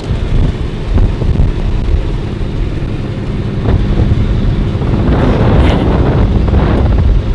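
A farm vehicle's engine running with a steady low drone and uneven low rumbling jolts.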